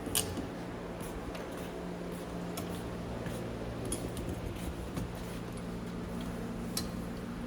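Handling noise from car bumper parts: scattered light clicks and taps, the sharpest just at the start and another near the end, over a steady low hum.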